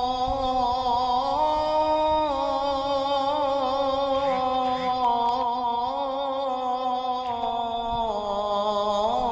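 Arabic devotional song in praise of the Prophet (salawat): a sung voice holding long, wavering melismatic notes, the pitch stepping up about a second in and stepping down near the end.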